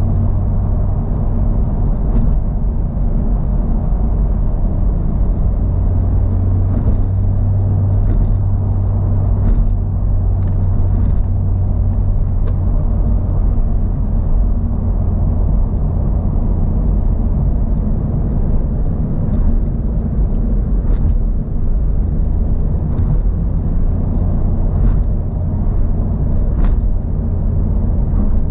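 Honda Civic Type R (FL5) being driven at a steady pace: a constant low rumble of engine and road noise, with a few faint ticks scattered through it.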